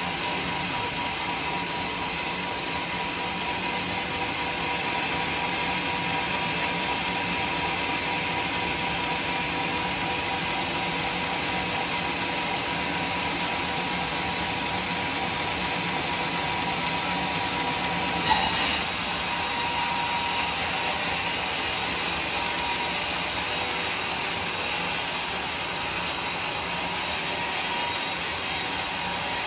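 Vertical band sawmill blade running and ripping through teak wood, a steady cutting noise with a faint steady whine. A sharp knock comes about 18 seconds in, after which the cutting sounds a little louder and brighter.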